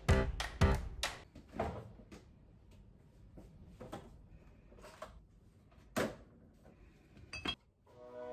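A plucked-note music passage ends a second or two in, followed by a handful of separate knocks and clinks of household items being handled, like dishes or a drawer, about one a second, with a short double clink near the end.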